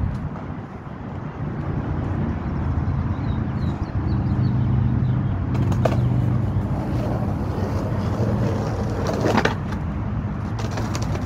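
Skateboard wheels rolling over rough asphalt with a steady rumble. About nine seconds in, the board's trucks strike and scrape along a concrete curb on a 5-0 grind attempt, and a few sharp board clacks follow near the end.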